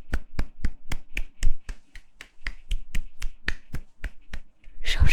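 Hand claps or palm slaps made for ASMR, sharp and evenly paced at about four a second, with a louder rustling noise near the end.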